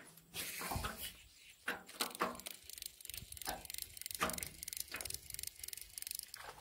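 Fishing reel being cranked as a lure is retrieved: a faint, rapid ticking, denser in the second half, with a few louder knocks and a low thump about a second in.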